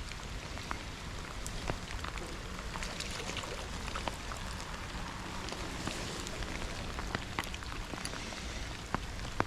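Steady rain falling, a constant hiss with scattered sharp ticks of single drops striking close by.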